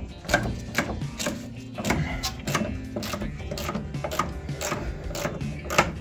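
Hand socket ratchet clicking in short repeated strokes, about two a second, as a rusty suspension bolt is undone under the car.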